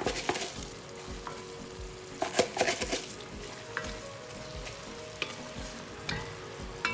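Wooden spatula stirring a bubbling curry in an enamelled cast-iron pot, scraping and knocking against the pot, over a light sizzle. The scraping comes in clusters near the start and about two and a half seconds in, with single knocks after.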